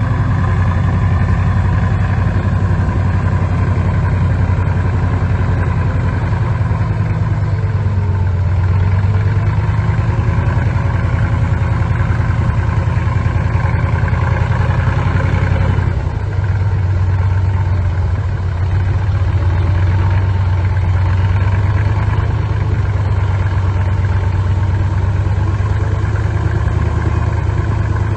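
Bulldozer's heavy diesel engine running steadily, with a brief dip and change in its note about halfway through.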